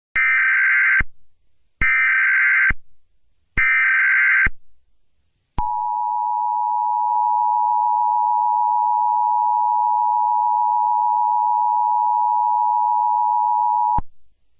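Emergency Alert System SAME header: three short bursts of warbling digital data tones, each about a second long. They are followed by the two-tone attention signal, held steady for about eight seconds, which marks the start of a new warning.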